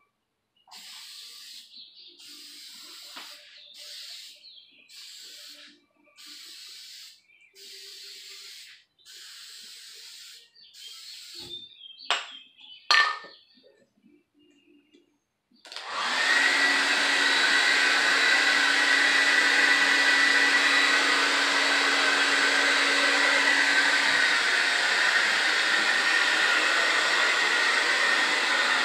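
Aerosol spray can hissing in about eight short bursts of a second or so each as a last clear coat goes onto a plastic car badge panel, with a couple of sharp knocks about halfway through. Then a handheld hair dryer switches on and blows steadily and loudly, drying the fresh coat.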